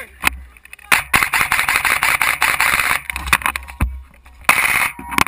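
Airsoft rifle firing on full auto, heard up close from a camera mounted on the gun: a rapid mechanical rattle of about two seconds beginning a second in, then a shorter burst near the end.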